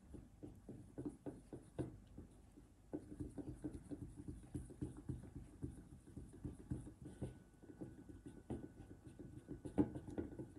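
Silicone spatula stirring thick chocolate ganache in a stainless steel bowl: quick, soft, rhythmic scraping strokes, several a second, with a louder knock against the bowl near the end.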